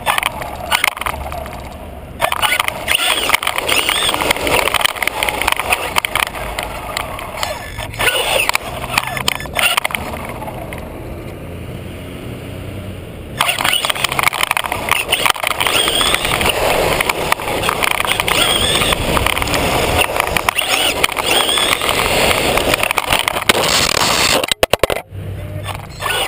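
Team Associated RC10B3 electric 1/10-scale buggy driving on concrete and pavement: the electric motor whines up and down with the throttle over the rough, clattering rush of its tyres on gritty ground and the chassis rattling. It goes quieter for a few seconds about halfway through, then picks up again.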